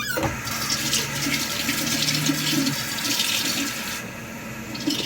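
Water running steadily, filling a quarter-cup measure; the rush thins out about four seconds in.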